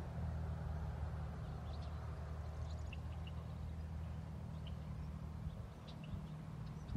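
A steady low engine hum, easing slightly near the end, with a few short faint bird chirps over it.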